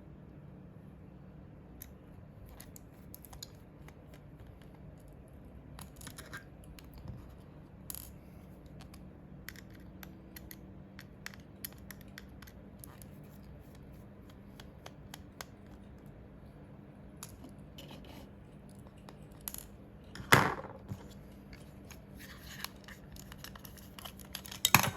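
Scattered small clicks and scratching from hands working on the plastic parts of a computer mouse, with a sharp knock about twenty seconds in and another near the end, over a low steady hum.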